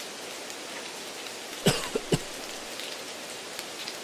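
Steady rain-like hiss with light crackling, interrupted about a second and a half to two seconds in by two short coughs. This is background noise laid over the test audio to imitate a poor exam-room environment.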